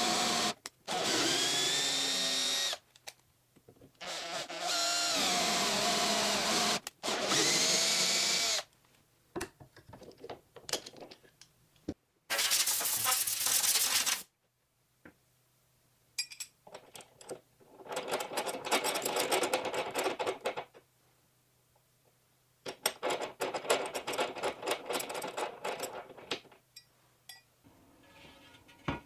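Cordless drill driving a spiral tap to cut threads into a plywood block, running in three short bursts whose whine rises in pitch as it speeds up. Later an aerosol can hisses for about two seconds, followed by two spells of rapid clicking and rattling.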